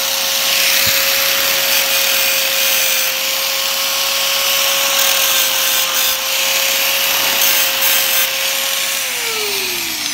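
Electric angle grinder running at full speed, its disc grinding through a smear of engine assembly lube into a steel bench top: a steady whine over a hiss of grinding. About nine seconds in it is switched off, and the whine falls as the disc spins down.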